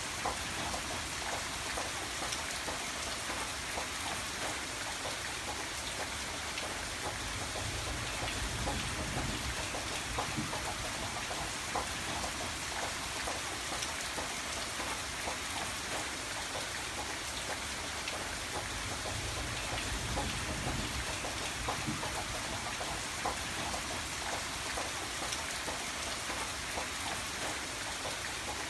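Steady rain falling, a dense even patter with many separate drops tapping on a surface. A low rumble swells up twice underneath.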